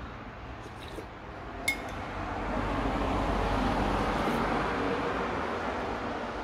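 A single sharp clink of cutlery against a plate, with a short ring, about a second and a half in. Behind it, steady road traffic noise swells and fades through the middle.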